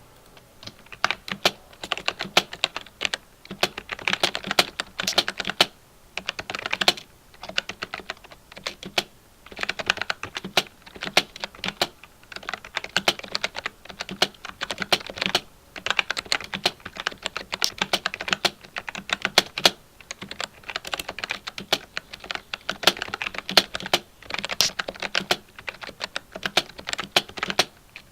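Typing on a 1STPLAYER Fire Dancing GK3 mechanical keyboard with POM switches: quick runs of key clicks, starting about a second in and broken by short pauses every few seconds.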